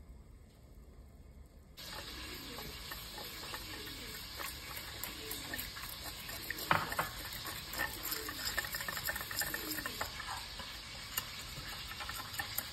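Silicone whisk stirring melted butter fast in a stainless steel saucepan, the wires scraping and tapping against the pan over a steady sizzle; it starts suddenly about two seconds in.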